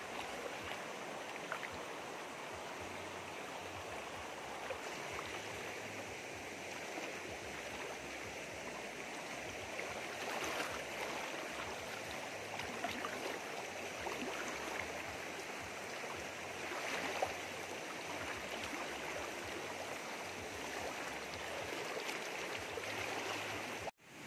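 Shallow forest stream running over rocks, a steady rushing wash of water, with a few louder splashes in the middle stretch as someone wades and reaches into the water.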